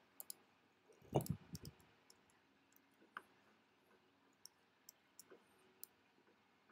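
Faint, scattered clicks of a computer mouse and keyboard, about a dozen spread unevenly. A brief low thump about a second in is the loudest sound.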